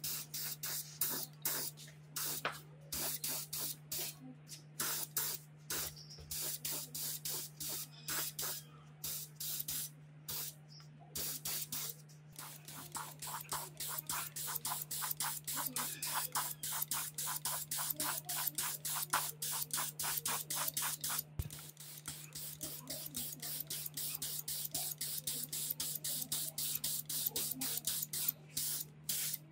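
Gravity-feed paint spray gun spraying grey paint onto electric motor housing parts in many short, quick bursts of hiss, coming faster from about halfway through. A steady low hum runs underneath.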